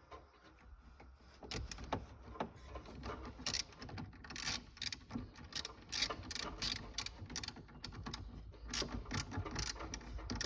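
Ratchet wrench with a 10 mm socket clicking in short back-and-forth strokes as the nut on the battery's negative terminal clamp is tightened, the clicks starting about a second and a half in.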